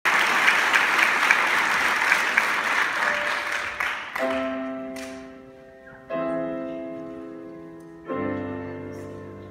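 Audience applause dying away, then a piano plays three chords about two seconds apart, each left ringing and fading.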